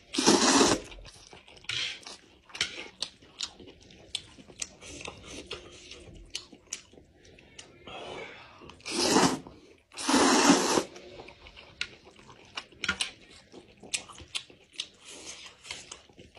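Close-up eating sounds of thick fried noodles: three long loud slurps, one just after the start and two close together about two thirds of the way through, with wet chewing and lip-smacking clicks between them.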